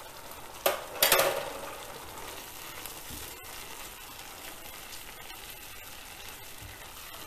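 Cherry tomatoes in hot oil sizzling steadily in a nonstick frying pan, the sizzle coming from the tomatoes bursting open. Two sharp knocks about a second in, then a silicone spatula stirring through the pan.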